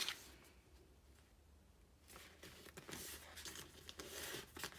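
Faint rustling and rubbing of a sheet of kami paper as fingers crease a fold flat, starting about two seconds in.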